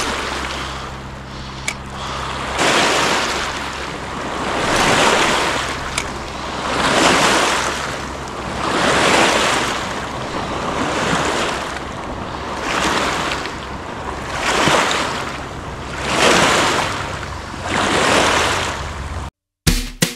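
Small lake waves washing against the shore, a swell about every two seconds. The sound cuts off suddenly near the end.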